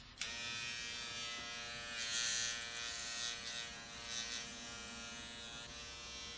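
Electric shaver switched on just after the start and buzzing steadily as it is run over the chin, the buzz turning brighter and rougher for moments about two and four seconds in.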